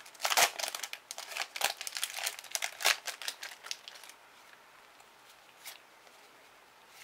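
Foil booster-pack wrapper crinkling and tearing as it is pulled open and the trading cards are drawn out. The crinkling stops about four seconds in, leaving only faint handling of the cards.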